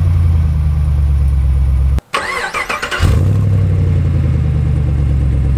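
6.2-litre LS3 V8 in a Jeep Wrangler JK, through a Magnaflow exhaust, running steadily just after starting. It breaks off sharply about two seconds in, and after a short stretch of lighter cranking-like sound the engine fires again about three seconds in and settles into a steady idle.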